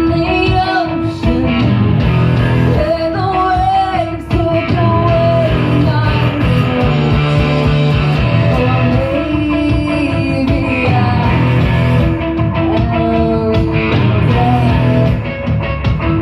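Live rock band performance: a singer over electric guitar, bass and drums.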